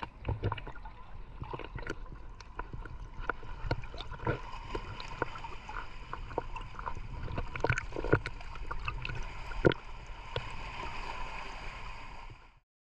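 Small sea waves lapping and splashing around a camera held at the water's surface, with irregular gurgles and splashes. The sound cuts off suddenly near the end.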